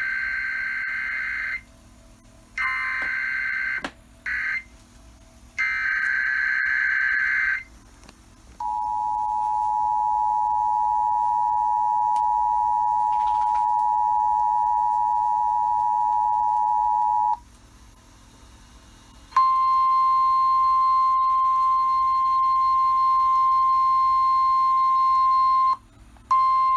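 Emergency Alert System header: three bursts of buzzing digital data, each about two seconds long and a second apart. Then the two-tone attention signal is held for about nine seconds. After a short pause a single steady alarm tone sounds, broken briefly near the end and resuming, which marks the start of a new weather warning.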